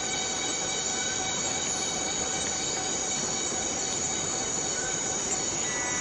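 A chorus of cicadas buzzing in a forest: a dense, steady, high-pitched drone that does not change.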